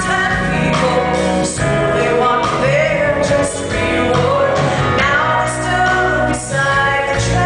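Live band music with several singers singing a song together over drums, bass and keyboard.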